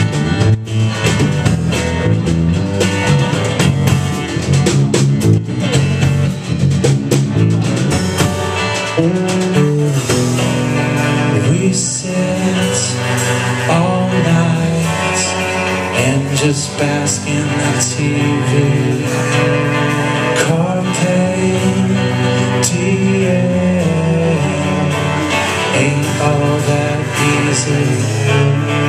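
Live band playing a song: acoustic guitar strummed, electric guitar, cello and drum kit together, with a voice singing at times.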